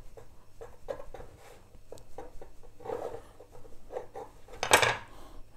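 Kitchen knife cutting around the inside of a slice of bread on a wooden cutting board, an irregular run of small scratching and crunching sounds as the blade goes through the crust and crumb, with one louder scrape near the end. The soft crumb is being cut out of the slice.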